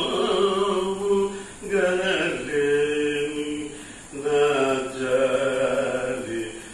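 A man singing a devotional song solo, in three long phrases of held, wavering notes with brief breaths between them.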